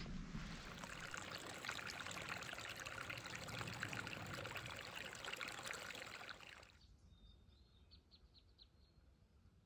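A small mountain creek trickling and babbling over rocks. About two-thirds of the way in it cuts off suddenly to a much quieter background, with a few faint bird chirps.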